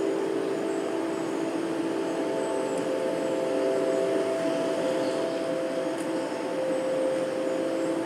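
Recorded sound-art piece played loud over loudspeakers: a steady noisy drone with several held tones. A few of the lower tones fade in the middle and come back near the end.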